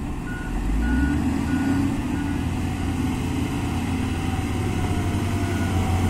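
Tata truck's diesel engine running under load as it pulls a loaded tipper trailer through soft sand, growing louder. A reversing alarm beeps four times in the first couple of seconds and once more near the end.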